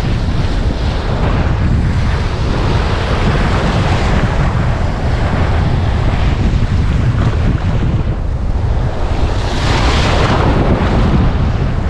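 Strong wind buffeting the action camera's microphone in a heavy low rumble, over the wash of surf on the shore, with a louder rush swelling up about ten seconds in.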